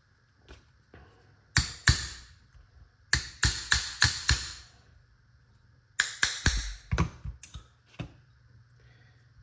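Small hammer tapping a steel pin punch to drive a pin out of a shotgun's trigger mechanism: sharp metallic taps in three groups, two, then five, then about six.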